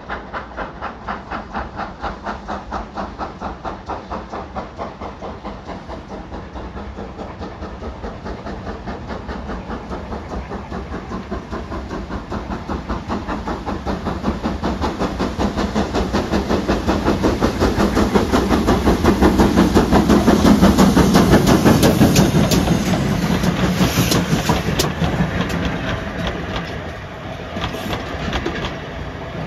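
Steam locomotive hauling a passenger train, its exhaust beating in a quick, steady rhythm that grows louder as it approaches and is loudest about two-thirds of the way through. Near the end the coaches run past with wheels clicking over the rail joints.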